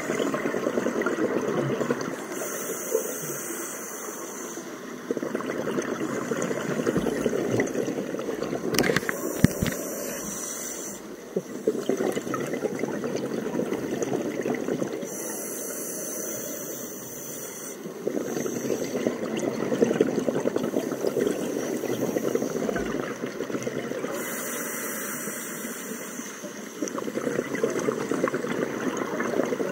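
Scuba diver breathing through a regulator underwater: a short hissing inhale alternates with a longer rumble of exhaled bubbles, about four breaths in all. A couple of sharp clicks come about a third of the way through.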